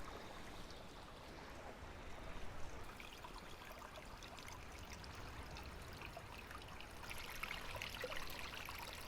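Faint, steady rushing outdoor noise, like moving water, with short, light crackling ticks in the last two seconds.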